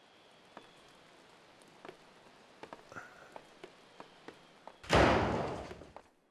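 Footsteps on a hard floor, then a heavy wooden door shutting with one loud thud about five seconds in, dying away over about a second.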